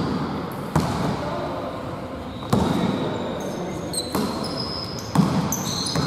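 A basketball bouncing on a hardwood gym floor, four separate echoing bounces, with sneakers squeaking high on the court in the second half.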